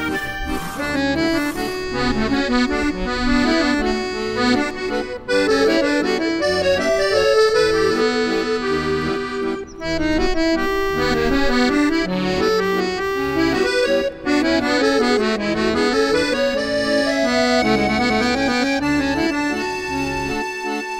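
Instrumental accordion music: a continuous tune of many notes moving up and down over a bass accompaniment, with no singing.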